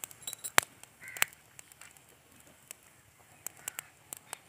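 Glass bangles clinking in short, sharp clicks as they are handled and slid onto a wrist, with a single short bird call about a second in.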